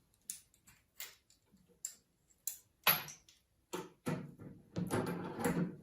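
Irregular sharp plastic clicks and taps as a flexible braided hose's nut is screwed by hand onto the plastic threads of a toilet cistern fill valve, with a denser clatter of handling near the end.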